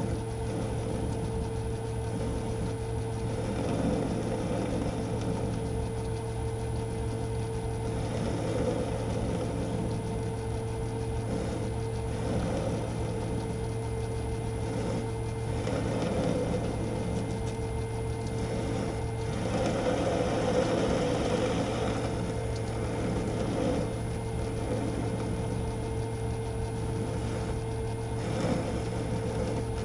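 Metal lathe running under a facing cut, its motor and gearing giving a steady hum with the uneven scrape of the tool taking metal off the end of the workpiece.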